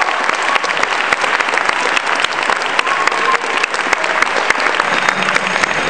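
Audience applauding, a dense steady patter of many hands clapping. Near the end a low steady hum comes in underneath.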